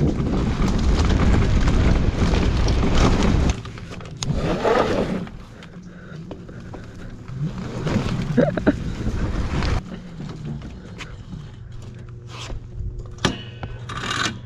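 Electric enduro e-bike being ridden over grass: wind rushing on the microphone with tyre and motor noise, loudest in the first few seconds and again briefly about halfway through, then quieter. A few sharp clicks come near the end.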